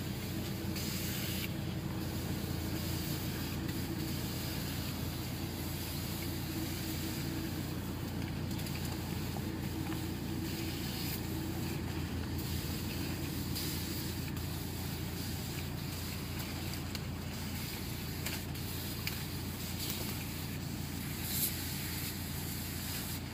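Motorised tank sprayer's pump engine running steadily, with the hiss of the hand spray lance as it sprays grape bunches.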